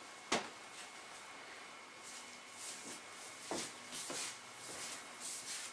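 Quiet small room with a single sharp click about a third of a second in, then soft rustling and light footfalls as someone moves about holding the camera.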